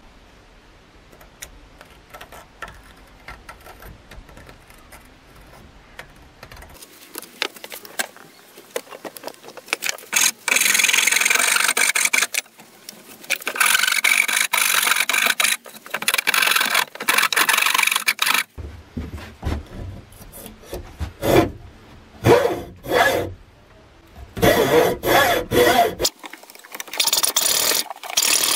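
A hand file scraping back and forth across the end grain of a new wooden hammer handle clamped in a vise, in long runs of strokes from about ten seconds in. Near the end a hacksaw cuts into the top of the handle with quicker strokes. Before the filing there are only faint small clicks and handling sounds.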